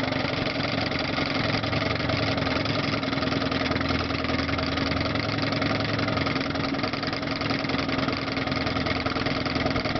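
1958 West Bend Muskie 8-horsepower two-stroke outboard motor running at a steady, even idle.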